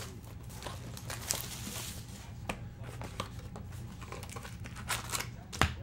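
Cardboard box of trading-card packs being opened and handled: soft crinkling, scraping and light taps, with a sharper knock about five and a half seconds in.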